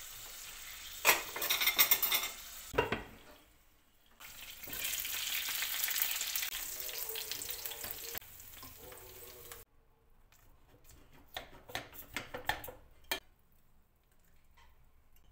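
Stuffed pork steaks sizzling in hot oil in a frying pan, with a burst of loud clattering against the pan about a second in; the sizzle stops abruptly a little past halfway. Near the end, a few sharp clicks of a knife and fork on a plate.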